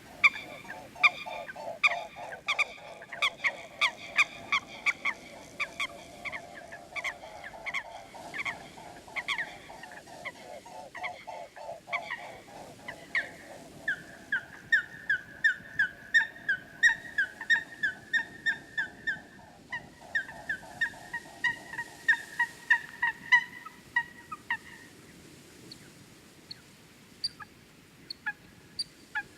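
Waterfowl calling: dense runs of short, pitched calls, several a second. About halfway through, a higher, thinner series of calls takes over, and the calls thin out to scattered single ones near the end.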